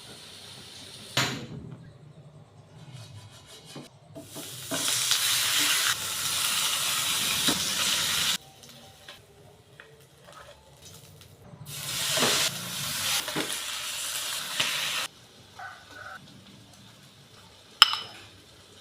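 Food sizzling in a hot pan, in two stretches that each cut off abruptly, with quieter stirring and utensil noises between and a sharp knock about a second in and another near the end.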